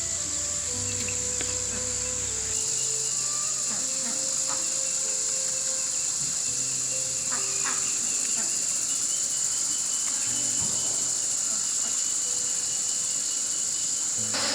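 A steady, high-pitched chorus of insects chirring without a break. Soft background music with slow, held notes plays under it.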